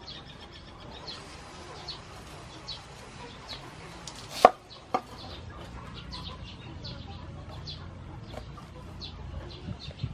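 Chickens clucking in the background, with short high chirps repeating throughout; two sharp knocks about four and a half and five seconds in.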